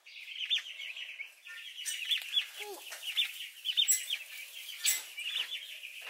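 A brood of young turkey poults peeping continuously, with many short, high cheeps overlapping, and a few sharp clicks among them.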